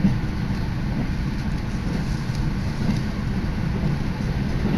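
Steady low rumble of an electric commuter train, heard from inside the carriage as it runs into a station.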